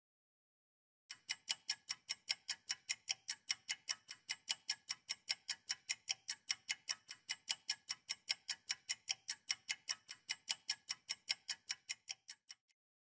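Clock-ticking sound effect for a quiz countdown timer: rapid, even ticks, about four or five a second, starting about a second in and stopping near the end.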